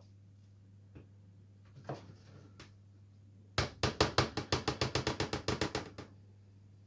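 A spoon knocking rapidly against a bowl while beating the melted chocolate mixture: about twenty quick, even knocks over two and a half seconds, starting a little past halfway. A few soft clatters come before it.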